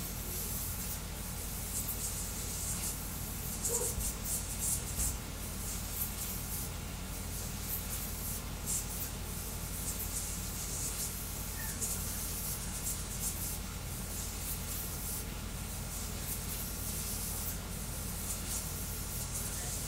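Voron CoreXY 3D printer printing at high speed, around 400 mm/s with 7k acceleration: a steady whirring hiss over a low hum and a thin steady tone, broken by quick high-pitched rasps as the toolhead darts back and forth.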